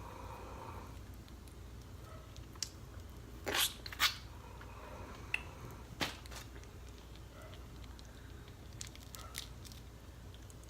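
Snow crab leg shells being cracked and eaten: a few sharp cracks and snaps, the loudest pair about three and a half seconds in and another at six seconds, with smaller clicks and wet chewing between them, over a steady low hum.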